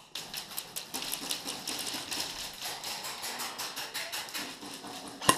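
Airsoft guns firing in rapid strings, a dense fast clatter of clicks with BBs rattling off plywood walls, and one sharp knock near the end.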